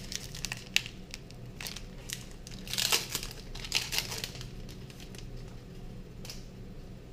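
Foil Pokémon booster pack wrappers being torn open and crinkled: a run of crackling rustles, loudest about three and four seconds in.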